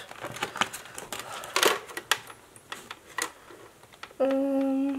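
Scattered light clicks and rustles of paper sticker sheets and plastic packets being handled on a desk. Near the end a short, steady hummed note lasting under a second is the loudest sound.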